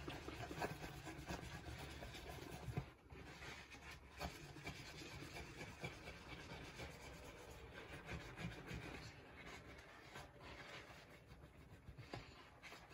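Faint rubbing of a paper towel worked back and forth over a small anvil's metal face, polishing off rust, with a few light knocks.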